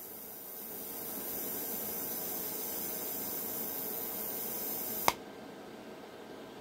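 TIG welding arc hissing steadily as a steel gear is welded to its shaft in a snowblower gearbox. It grows louder about a second in and cuts off with a sharp click about five seconds in.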